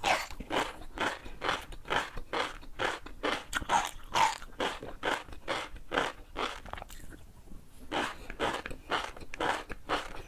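Close-miked chewing of crunchy food, in a steady rhythm of about two to three crunching chews a second, with a short pause about seven seconds in.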